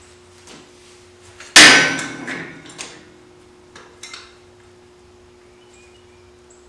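Metal roller stand being handled and set up: one loud metallic clang that rings on, about a second and a half in, then a few lighter clanks.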